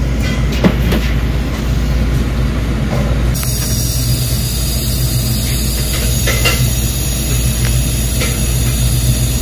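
Steady low mechanical hum and rumble, with a few light clicks and knocks.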